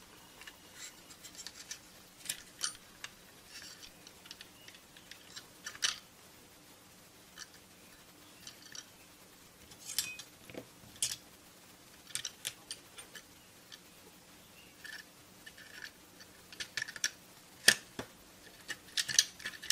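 Scattered sharp plastic clicks and light knocks from a multimeter's circuit board being handled and set into its plastic case. The clicks come irregularly, with the loudest one and a quick cluster near the end.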